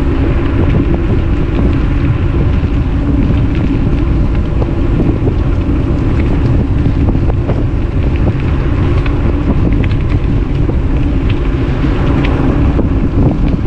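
Loud, steady wind noise buffeting the microphone while riding along on an e-bike, with a few faint scattered clicks.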